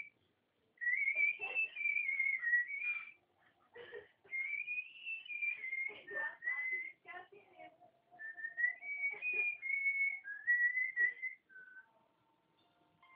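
A man whistling a tune, in phrases of one to three seconds with short breaks between them.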